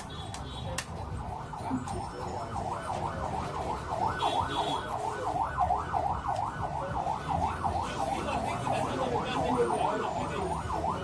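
Emergency vehicle siren in a fast yelp, its pitch sweeping up and down about three times a second. It starts about a second and a half in and grows louder.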